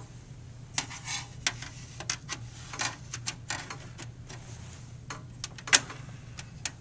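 Clicks, scrapes and rattles of a drive being slid into the metal drive bay of a Dell desktop computer case, with one sharp, louder click a little before six seconds in. A low steady hum runs underneath.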